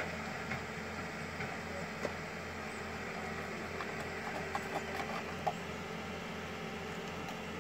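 Vehicle engine idling, a steady low hum, with a few faint light clicks about four to five and a half seconds in.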